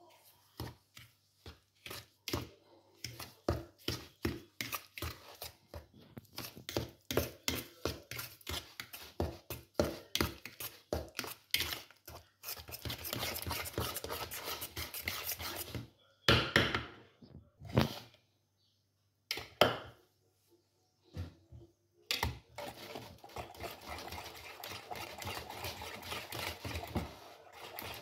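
Hand whisk beating eggs, sugar and mashed banana into batter in a bowl: a long run of quick clacks against the bowl, two or three a second, then a steadier scraping swish with a few louder knocks, broken off briefly past the middle.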